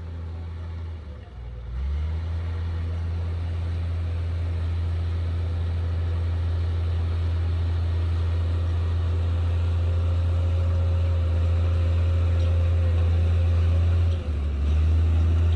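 Komatsu D58P bulldozer's diesel engine running under load: a steady low drone that dips briefly about a second in and again near the end.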